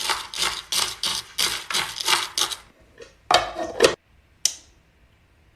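Wax being stirred in a pot with a utensil: rhythmic scraping strokes, about three a second, then a longer, louder scrape and a single sharp click.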